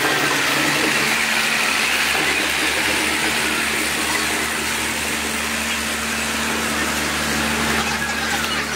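Fire truck's engine running steadily at low speed as the truck rolls slowly past, a low rumble under a constant hum.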